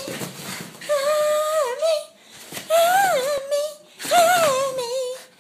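A small dog howling in drawn-out, wavering whines: three calls of about a second each that bend up and down in pitch, after the end of an earlier call.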